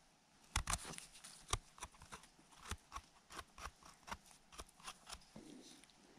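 Knife blade scraping soil off the base of an orange-capped bolete's stem: a quick run of short scrapes and clicks, a few each second, starting about half a second in and stopping about a second before the end.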